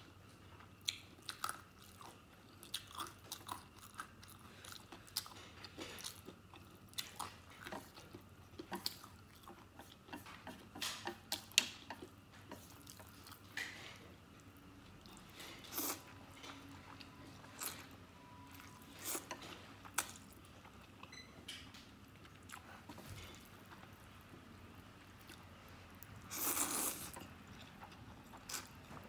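Close-up eating sounds: wet chewing and many short mouth clicks on soft noodles, with a longer noisy slurp of noodles near the end.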